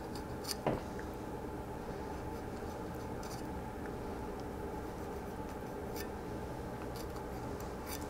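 Fillet knife working under a burbot's rib bones on a wooden cutting board: faint cutting and scraping with a few small clicks, the loudest just under a second in, over a steady background hum.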